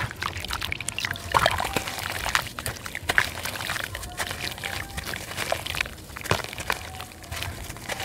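A red dirt block dunked and lifted in a basin of muddy water, close-miked at the basin's rim: water sloshing and pouring off the block in dribbles, with a steady run of small crackles and splashes as soaked pieces break away and drop into the water.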